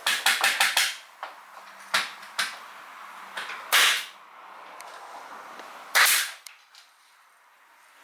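A series of sharp, loud impacts: a quick burst of about six in the first second, then single strikes about two, two and a half, four and six seconds in.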